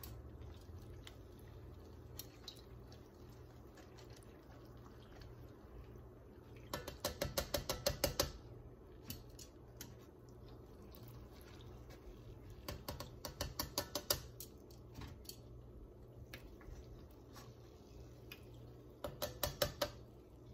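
Metal kitchen tongs clicking against a pot of frying oil in three quick runs of rapid clicks, each about a second and a half long, over a low steady hum.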